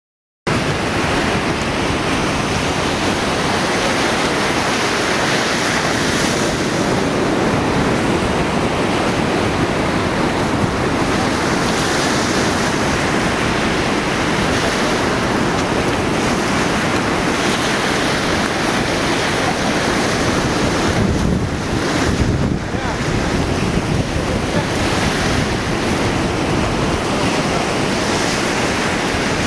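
Ocean surf breaking and washing on a beach, with wind buffeting the microphone: a steady rushing noise that starts about half a second in.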